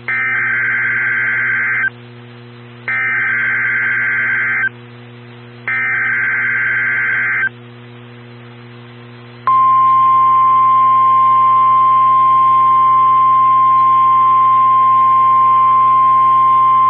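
Emergency Alert System SAME header tones from NOAA Weather Radio: three bursts of warbling, buzzy data tones, each about two seconds long with about a second of radio hiss between them. Then, about nine and a half seconds in, the steady single-pitch weather radio alert tone starts and holds, signalling an emergency alert, here a tornado watch.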